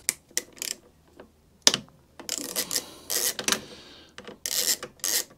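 Ratcheting hand tool worked in short strokes to undo a small screw on a lawnmower's carburettor linkage: a dozen or so brief, uneven bursts of clicking with short pauses between.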